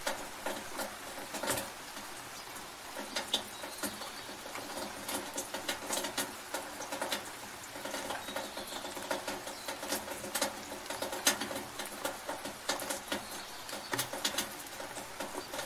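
Rain in a gutter: a steady wash of rain with irregular sharp drips and splashes ticking over it.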